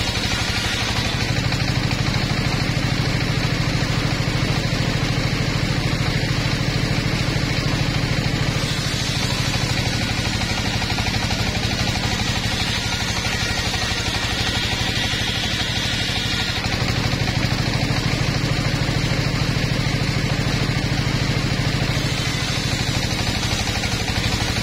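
Portable circular saw bench running, its engine going steadily as the large blade rips logs into planks.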